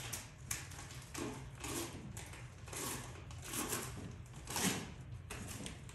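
Cardboard box scraping and rustling on a tile floor as puppies scramble in and around it, in a series of irregular scuffs.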